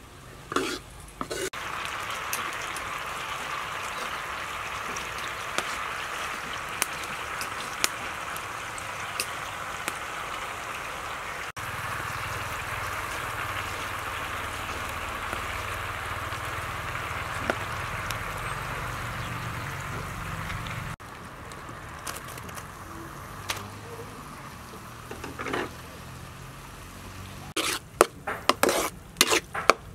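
Frothy liquid boiling hard in a wok over a wood fire, a steady sizzling hiss. Near the end a spatula scrapes and knocks against the wok in quick strokes as the mixture is stirred.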